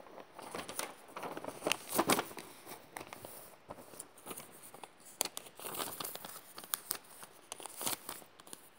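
Crinkling and rustling of material being handled by hand, with many short sharp clicks and taps, louder around two seconds in and again around five to six seconds in.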